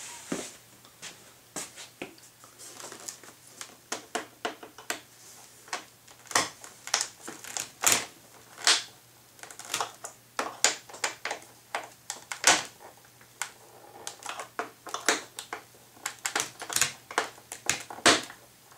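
Small screwdriver tightening the wing-mounting screws on an RC airplane: irregular sharp clicks and ticks as the driver tip works the screw heads and the hand shifts on the wing.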